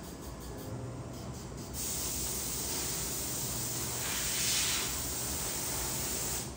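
A steady hiss that starts about two seconds in, swells briefly near the middle and cuts off suddenly near the end.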